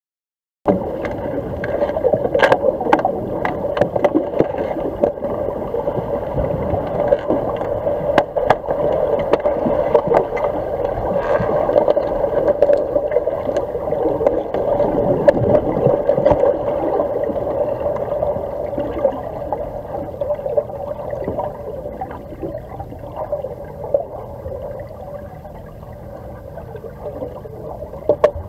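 Underwater pool ambience during an underwater hockey game: a steady muffled hum and water churn, with many sharp clicks and knocks from hockey sticks and the puck striking the tiled pool floor. The clicks come thick in the first half and thin out as play moves away.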